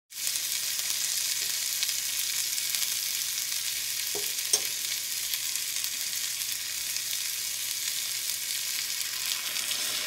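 Salmon pieces and green peppers sizzling steadily in hot oil in a miniature iron wok, with two light clicks about four seconds in.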